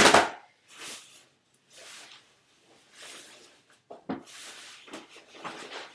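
A sharp thump as a shipping package is brought down hard, followed by short bursts of rustling and tearing about once a second as the packaging is ripped open.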